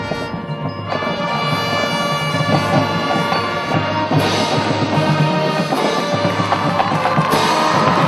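High school marching band playing: sustained brass and woodwind notes with drums and front-ensemble percussion, growing fuller and louder about halfway through.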